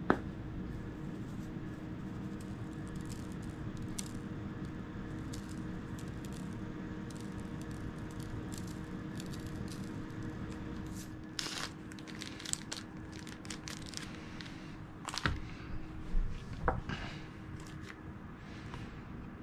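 A steady low hum, then from about halfway on, crinkling and rustling of a plastic-wrapped bacon package being handled, with several sharp clicks and knocks.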